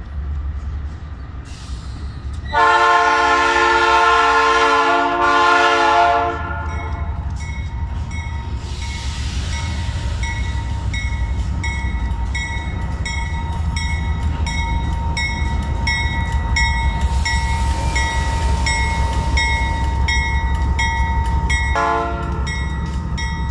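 Ferromex GE ES44AC diesel locomotive sounding its multi-chime air horn in one long blast starting about two and a half seconds in and lasting over three seconds, then rumbling past with its engine running, over a steady whine and short ringing strikes about one and a half times a second. A brief horn toot comes near the end.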